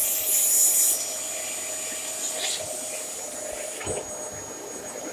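Dyson DC33 bagless upright vacuum cleaner running, a steady motor whine over a rush of air. The air rush is loudest in the first second, and there is a short knock about four seconds in.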